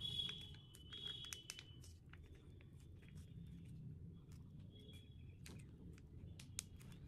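Faint handling sounds of a hair-colour pack: scattered light clicks and crinkles, busiest in the first second and a half, over a low steady room hum.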